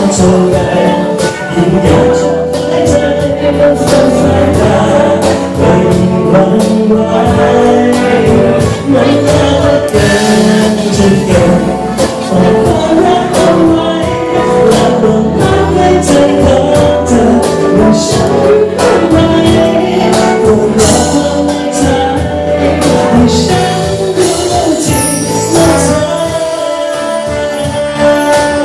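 Live pop band performing: a male singer sings over electric guitar, keyboards and trumpet, with a light percussive beat.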